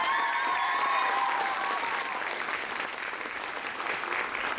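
Audience applauding steadily, many hands clapping. A drawn-out high-pitched cheer rides over the clapping for the first couple of seconds, then fades out.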